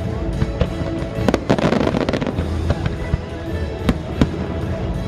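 Fireworks bursting in a series of sharp bangs and crackles, over a music soundtrack played through loudspeakers.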